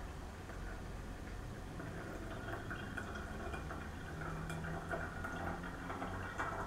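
Brewed coffee draining from a Clever Coffee Dripper's bottom valve into a glass beaker: a steady trickle of liquid into the coffee already in the beaker, the draw-down after steeping.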